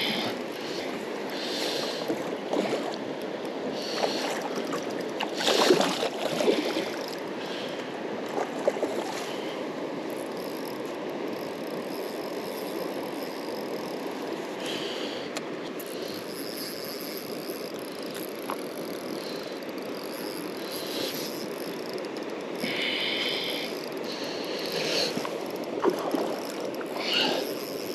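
Steady rush of a river's flowing current, with a few short, sharper splashes on top, the loudest about six seconds in.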